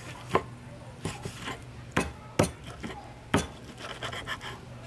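A cleaver chopping through pig ear onto a thick wooden chopping block: several sharp, irregularly spaced chops.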